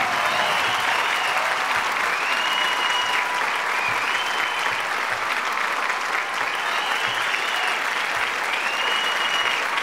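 A large audience applauding steadily. Through the clapping, a high tone slides up and holds, again and again.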